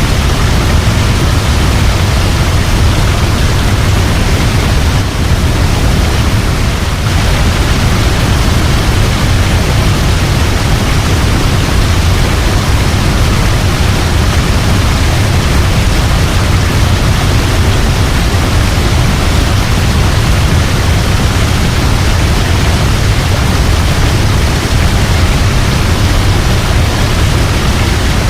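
Waterfall: a steady, loud rush of falling water with a deep low rumble beneath it.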